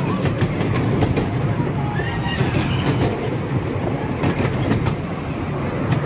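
Riding aboard a narrow-gauge steam railway train: the steady rumble of the carriage running along the track, with the wheels clicking irregularly over the rail joints.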